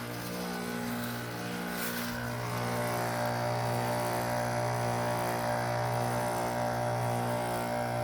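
Carrier heat pump outdoor unit running during a defrost cycle, its compressor giving a steady low hum with several overtones. There is a brief hiss about two seconds in, after which the higher part of the hum grows stronger.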